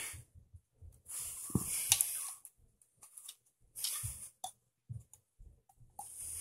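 Small metal turbocharger centre-housing parts being worked loose by hand, giving short scraping and clicking noises in three bursts: about a second in, in the middle, and near the end.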